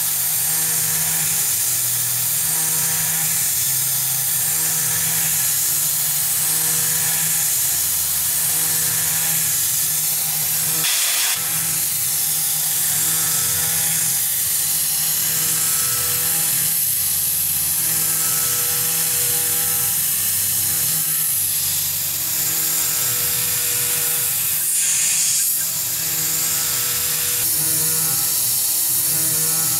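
Tormach 440 CNC mill cutting aluminum with a 3/16 in carbide end mill: a steady spindle whine with the chattering buzz of the cut, over a continuous hiss. The pitch of the cut shifts as the tool moves through the toolpath, and it breaks off briefly twice.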